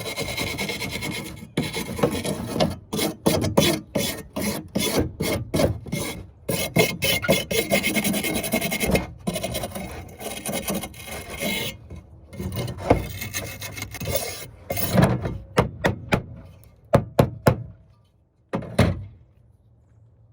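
Gas furnace burners being scrubbed of dust: quick, repeated rasping strokes of a brush or scraper on the metal, with a few separate knocks after about fifteen seconds.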